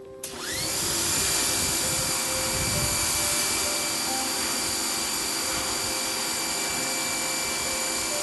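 Pressure washer starting up as the trigger is pulled: its motor whines up in pitch, then runs steadily under the hiss of the high-pressure spray from a 15-degree nozzle.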